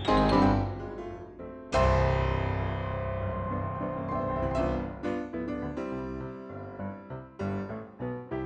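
Background piano music. A chord is struck about two seconds in and left to ring, then a bouncy pattern of short notes starts about five seconds in.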